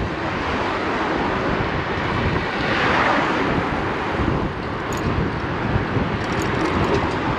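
Wind buffeting a bike-mounted microphone while riding, with a car passing on the road alongside about three seconds in, its road noise swelling and then fading.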